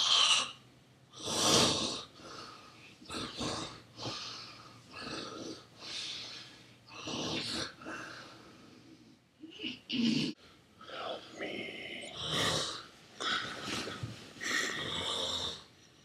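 A man snoring loudly in an irregular run of snorts and wheezes, a burst about every second, the loudest at the very start.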